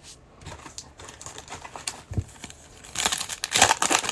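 Plastic foil trading-card pack wrapper crinkling as it is handled and torn open, faint at first and much louder from about three seconds in.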